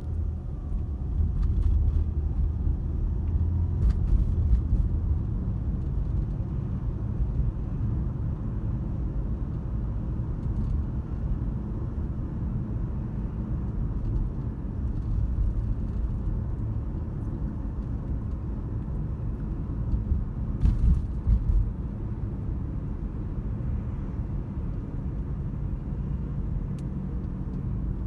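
Steady low rumble of tyre and engine noise heard inside a moving car's cabin, with a few louder knocks about twenty seconds in.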